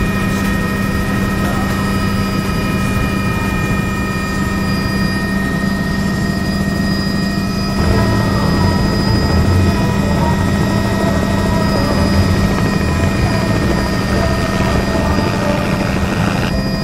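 Small helicopter in flight, heard from inside the cabin as a steady engine and rotor drone with constant whining tones. About eight seconds in the sound cuts to the helicopter heard from outside as it flies low past, its rotor beat lower and pulsing. Just before the end it cuts back to the cabin.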